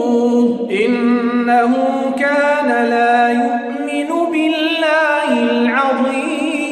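A man's voice chanting Quranic recitation unaccompanied, in long drawn-out melodic phrases, holding notes with ornamented turns between them.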